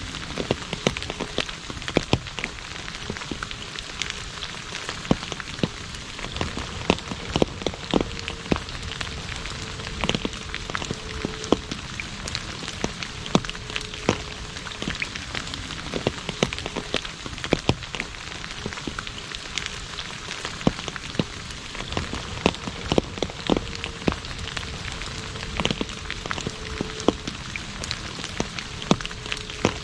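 Steady rain falling on an asphalt road: an even hiss with frequent sharp, irregular splashes of individual drops.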